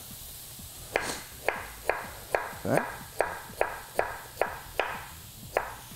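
Chef's knife slicing a carrot into thin rounds on a wooden cutting board: about eleven sharp, even knocks at roughly two and a half a second, starting about a second in.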